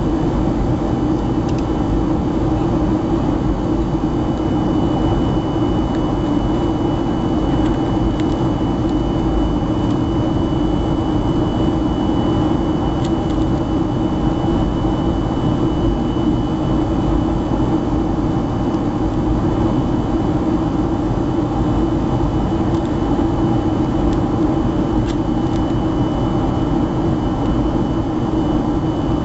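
Jet airliner cabin noise beside an underwing turbofan engine while climbing: a steady, loud roar with a thin, steady high whine above it.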